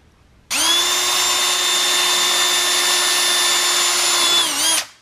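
Bosch cordless drill spinning up about half a second in and running at a steady speed for about four seconds while drilling a pilot hole through a car side skirt, its pitch sagging briefly just before it stops near the end.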